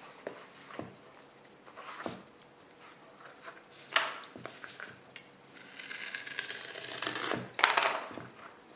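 Hands handling and smoothing a folded cardboard journal cover on a wooden board: paper rubbing and rustling, with a few sharp knocks, the loudest about four seconds in and near the end.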